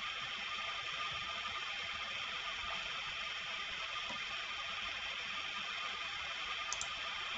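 Steady background hiss of room and recording noise with a faint steady tone, and one brief faint click near the end.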